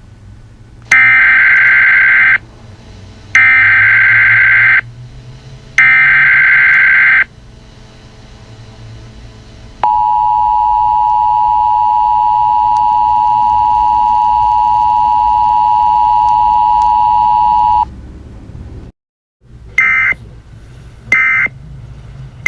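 Emergency Alert System tones: three screeching SAME header data bursts about a second and a half each, then an eight-second two-tone attention signal (853 and 960 Hz sounded together). Short data bursts come near the end.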